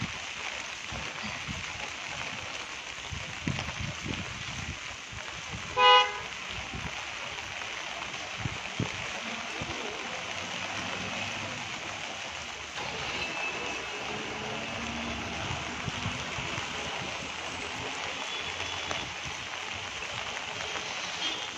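Steady hiss of rain and wind. About six seconds in, a vehicle horn gives one short, loud toot.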